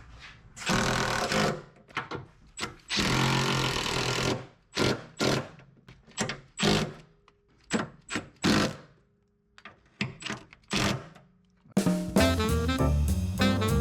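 A series of short, irregular bursts of noise from a power or air tool in the shop: two longer bursts of about a second each and many brief ones. About twelve seconds in, background music with a steady beat starts abruptly.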